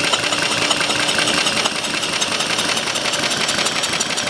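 A small single-cylinder model engine being spun over by an electric starting drill, with a steady drone and a fast, even clatter. Each compression stroke pushes air through a one-way check valve in the spark plug hole into a balloon, showing that the engine has enough compression to start.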